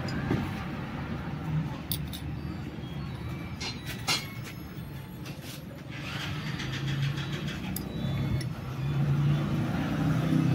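A motor vehicle engine running in the background, a low hum that grows louder through the second half, with a few sharp metal clinks of engine parts and tools being handled.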